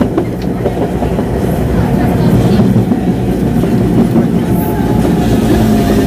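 CPTM Series 2000 electric multiple unit standing at the platform, its traction and electrical equipment giving a steady hum of several held tones.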